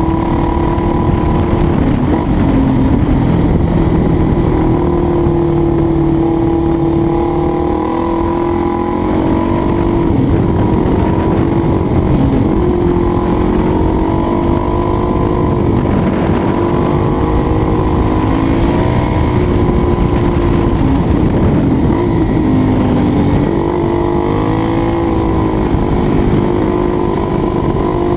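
Suzuki DR-Z400E's single-cylinder four-stroke engine heard from on board while riding, its pitch climbing and dropping again and again as the throttle opens and closes.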